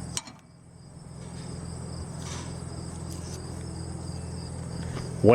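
Crickets trilling steadily over a low, steady hum, with a single click just after the start.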